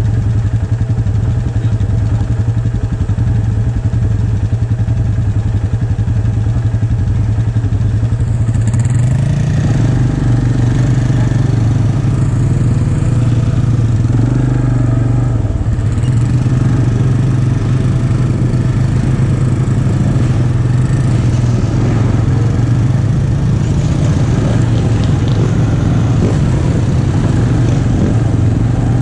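Off-road vehicle engine running steadily, a continuous mechanical hum that grows stronger about ten seconds in.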